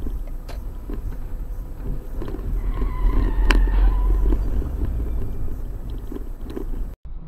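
Low engine and road rumble of a car driving, picked up inside the cabin by a dashcam. The rumble swells around the middle, with a sharp click about three and a half seconds in.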